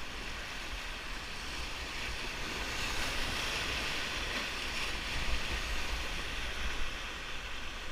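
River whitewater rushing around a raft, a steady hiss of water that swells a little in the middle, with some wind rumble on the microphone.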